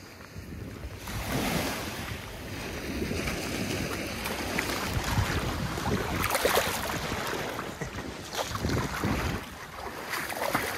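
Small waves washing over a sandy shoreline, with water sloshing around a striped bass held in the shallows as it is released. Wind buffets the microphone, and the sound swells about a second in.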